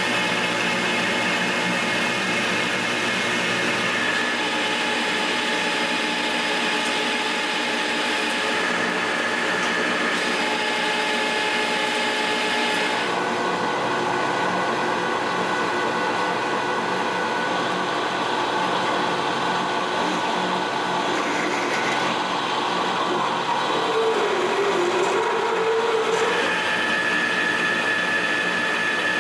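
Metal lathe running under power with a steady gear whine, machining a round metal bar: facing its end, then drilling into it from the tailstock. The tone of the machine changes about thirteen seconds in.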